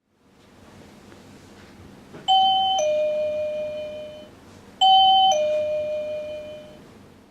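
Wireless motion-sensor visitor chime sounding a two-tone ding-dong twice, about two and a half seconds apart. Each is a short higher note dropping to a longer lower one that fades out. It is the chime's alert that someone has passed the entrance sensor.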